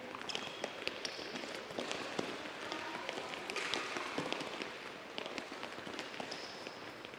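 Several soccer balls being dribbled on an indoor court floor: a busy, irregular patter of ball touches and running footsteps, with a few short high squeaks from shoes on the court near the start and again near the end.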